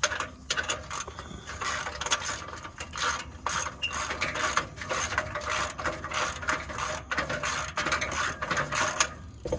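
Ratchet wrench clicking in rapid, uneven runs as bolts on an exhaust heat shield are worked loose.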